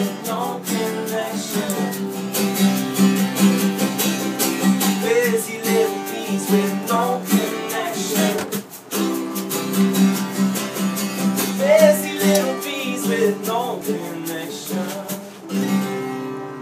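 Live band playing: strummed acoustic guitar with voices singing over it, until the music cuts off near the end.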